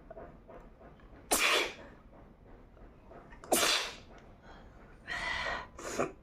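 A woman sneezing again and again, set off by a cotton swab tickling inside her nose: two loud, sharp sneezes about two seconds apart, then two shorter bursts near the end.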